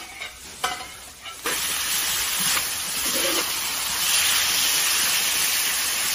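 Potato slices, meat and chillies stir-frying in a large wok with a metal spatula: a few scrapes and clinks, then from about one and a half seconds in a loud steady sizzle as the food fries over high heat.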